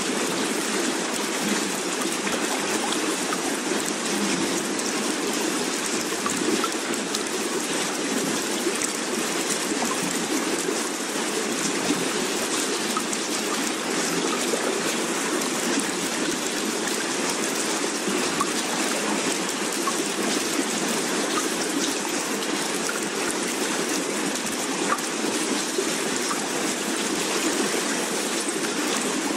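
Steady water ambience: an even rushing hiss like heavy rain or a running stream, holding one level without rising or falling.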